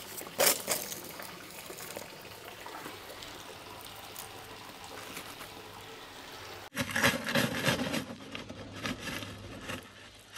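Water trickling steadily through an aquaponics gravel grow bed, with a clatter of gravel stones about half a second in. Near the end, gravel crunching and scraping under a hand trowel as a planting hole is dug.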